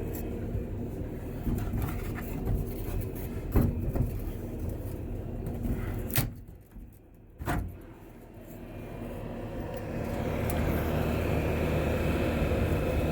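Diesel engine of a Bobcat T650 compact track loader running steadily, with a few sharp knocks. The level drops briefly just past the middle, then the engine comes back louder.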